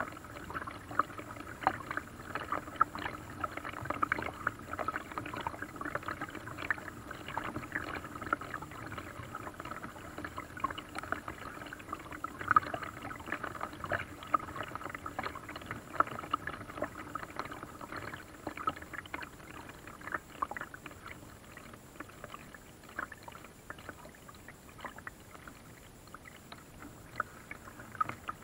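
Water splashing and dripping around a paddle and a small paddled boat on a lake, many small irregular splashes.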